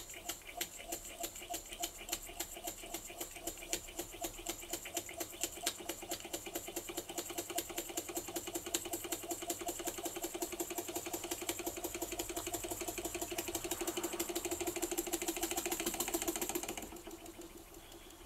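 Vintage German toy vertical steam engine running under steam from its spirit-fired boiler: a rapid, even mechanical beat with a steady hiss, gradually quickening and getting louder, then falling away suddenly near the end.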